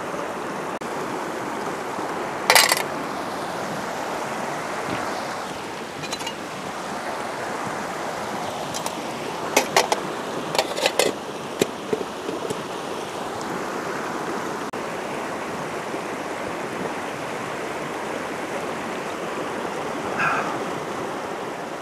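Mountain stream running over rocks, a steady rushing, with a few sharp metallic clinks of an aluminium mess tin and its lid, one early on and several close together near the middle.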